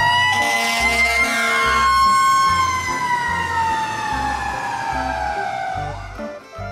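Fire truck siren wailing: its pitch rises briefly, then slowly falls over several seconds. Background music with a steady low beat plays under it.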